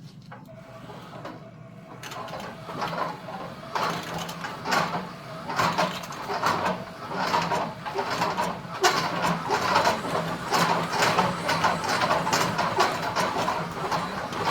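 Cordless drill spinning a spool to rewind MIG welding wire, its motor humming steadily while the wire and spool clatter rapidly; the clatter grows louder about two seconds in.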